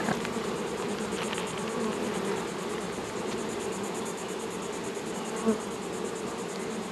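Honey bees buzzing steadily around an opened hive, a dense, even hum, with one brief louder note about five and a half seconds in.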